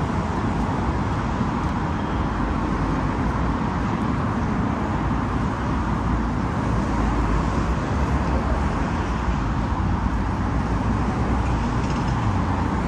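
Steady city street traffic noise, an even rumble of cars with no single event standing out.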